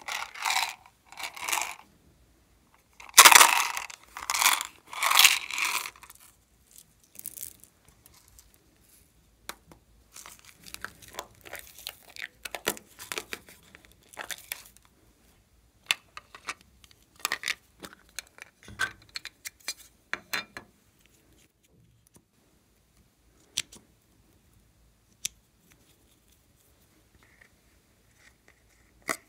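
Small plastic slime-add-in containers being handled, opened and tipped out onto slime: loud crinkling, tearing-like bursts in the first six seconds, then scattered light rustles and sharp clicks that thin out toward the end.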